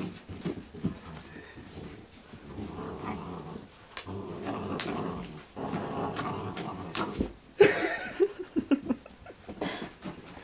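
Two ten-week-old Alaskan Malamute puppies growling as they play tug-of-war over a toy, in long rough stretches. About three-quarters of the way through comes a cluster of short, sharp, louder sounds.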